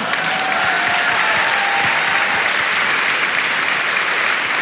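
A large audience applauding, a dense steady clatter of many hands clapping.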